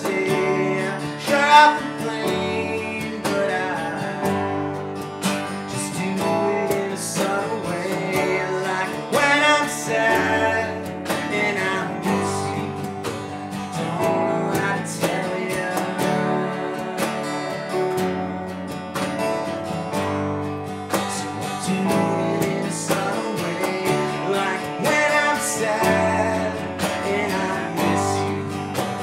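Small band playing a song live: strummed acoustic guitar, stage keyboard, box drum and electric bass, with men singing.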